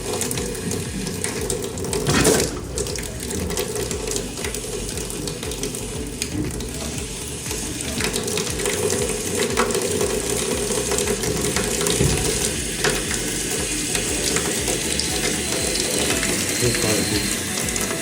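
Cold water running steadily from a mop sink faucet into the sink, with an irregular crackling rattle through it. There is one louder knock about two seconds in.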